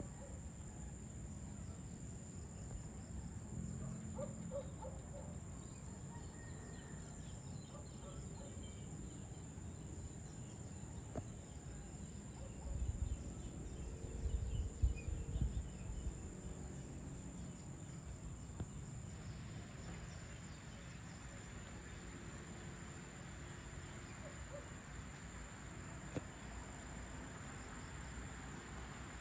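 Evening outdoor ambience of insects: a steady high-pitched insect drone throughout, with a low rumble swelling for a few seconds near the middle. From about two-thirds of the way in, a fuller hiss of insect noise joins.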